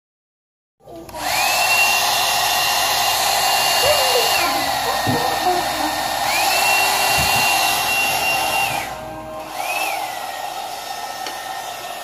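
Growom hot air brush switched on about a second in: its fan blows with a steady rush and a motor whine. The whine twice steps up in pitch, holds a few seconds and drops back as the speed setting is changed. Near the end the sound dips briefly and comes back quieter, with one short rise and fall in pitch.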